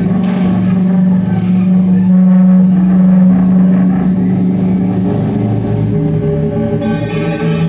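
Soundtrack music: a loud, sustained low droning chord that shifts about five seconds in, with higher notes coming in near the end.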